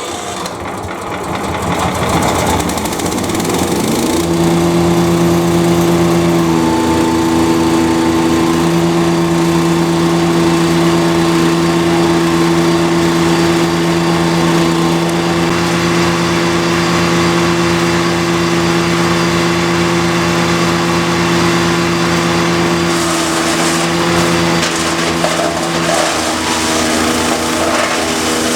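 The wood chipper's 420cc four-stroke OHV petrol engine, just electric-started on choke at full throttle, runs up to speed over the first few seconds. It then runs steadily at full speed with a constant hum, and its tone shifts slightly near the end.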